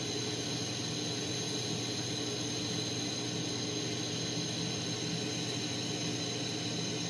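Steady hiss of a propane-oxygen glassworking torch flame turned down to a narrow pointed flame, with a steady low hum under it.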